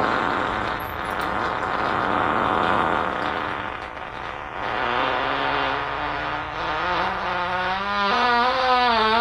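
A long drawn-out fart: a noisy rumble that, from about halfway through, turns into a pitched squeal wavering up and down, faster toward the end.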